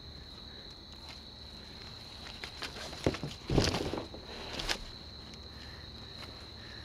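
Dry leaves rustling and a few dull knocks as a dead white-tailed doe is hauled up and laid across a plastic sit-on kayak, the loudest knock about three and a half seconds in. Under it, insects trill steadily on one high note.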